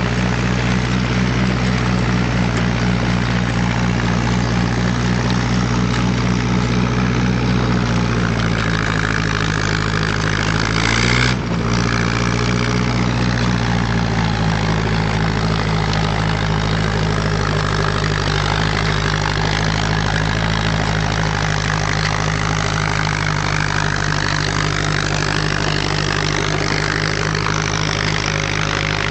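Ferguson FE35 tractor engine running steadily. About eleven seconds in, its pitch climbs briefly, breaks off for a moment, then settles back to a steady run.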